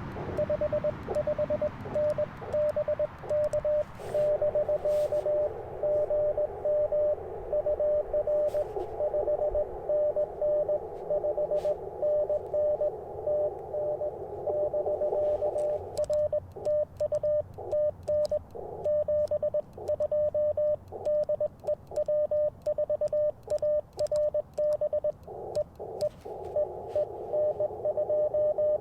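Morse code from an Icom IC-705 transceiver: beeps at one steady pitch keyed in dots and dashes. Part of the time it is the operator's own sending sidetone, with light clicks from the twin-paddle key. Part of the time it is a received station, heard over a band of receiver hiss through the narrow CW filter.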